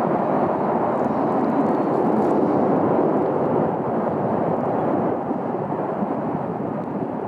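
Steady jet-engine noise from an Airbus A321's CFM56 turbofans as the airliner slows on the runway after touchdown, easing off a little near the end.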